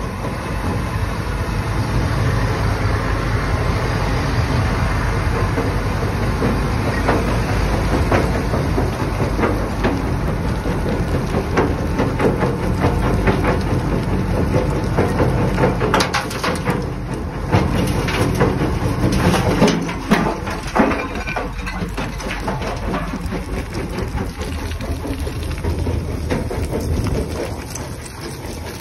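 Tractor-driven Herbst Compact 700 agri crusher running, its jaws breaking up brick and stone rubble: a steady engine hum under dense, irregular cracking and clattering of stone, busiest in the middle stretch.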